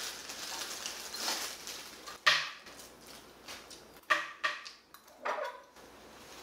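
Metal spoon scraping and clinking against a ceramic bowl as rice is scooped up and eaten. There is a sharp clink about two seconds in and a quick run of several clinks from about four to five and a half seconds in.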